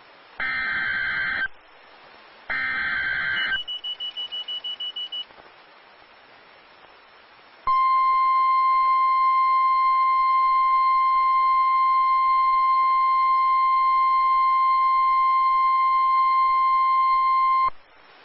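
Emergency Alert System tones: two roughly one-second SAME header data bursts and a short, rapid run of high beeps. After a few seconds' pause comes the steady single-pitch 1050 Hz NOAA Weather Radio warning alarm tone, held for about ten seconds, which signals that a severe thunderstorm warning follows.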